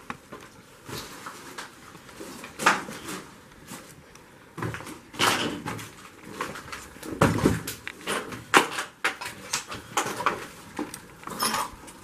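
Irregular knocks, scuffs and clatter of people moving about among debris, with a handful of sharper knocks a second or two apart, in a small, bare room.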